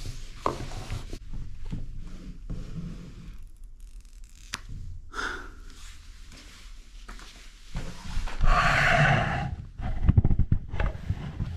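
Handling sounds of a new iPhone being unwrapped: soft knocks, clicks and plastic rustles as its protective screen film comes off, then a louder rustle lasting about two seconds near the end.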